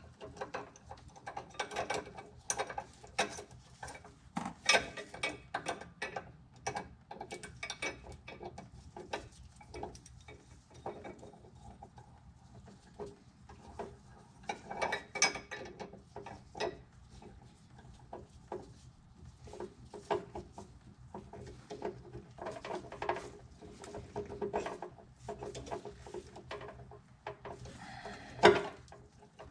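Irregular metallic clicks and clanks from hand tools being worked, with a few louder knocks.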